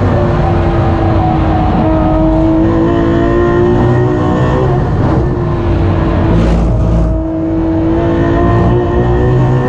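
Ferrari FXX K's V12 engine running hard at high revs, heard from inside the cockpit, with its note breaking briefly twice around the middle.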